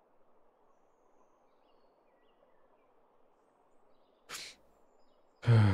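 Faint forest ambience with a few faint bird chirps. About four seconds in, a man takes a short sharp breath in, and near the end he lets out a loud voiced sigh.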